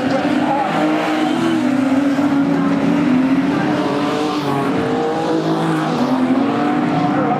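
Several production sedan race cars running hard on a dirt oval, their engines at high revs with several pitches overlapping and drifting slightly as they race through a bend.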